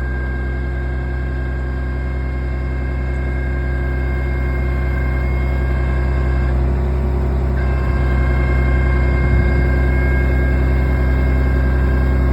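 Caterpillar 345C L long-reach excavator's diesel engine running steadily: a deep even hum that grows slightly louder, with a faint high whine over it that drops out briefly midway.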